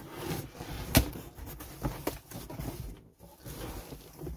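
Handling noise of packaged craft supplies: an uneven rustle of plastic packaging, with a sharp knock about a second in and a few lighter clicks after it.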